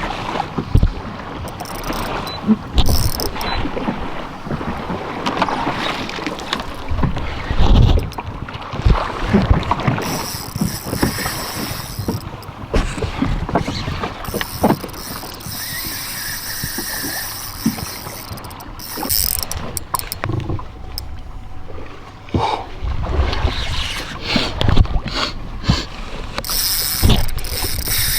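Noises aboard a fishing boat on open water: water slapping the hull, wind buffeting the microphone, and scattered knocks and clicks of gear throughout.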